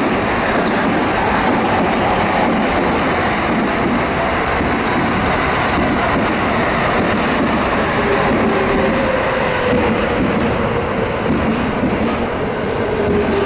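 Electric commuter train running on the line: a loud, steady rumble of wheels on rail, with a faint whine that slowly falls in pitch from about eight seconds in.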